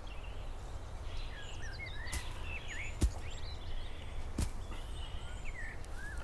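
Outdoor forest ambience: small birds chirping now and then over a low steady rumble, with three short sharp clicks scattered through it, the loudest about three seconds in.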